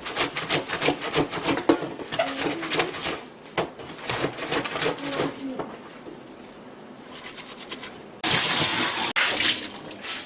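Household washing sounds: a run of light clatters and knocks, then a burst of hissing water or spray lasting about a second.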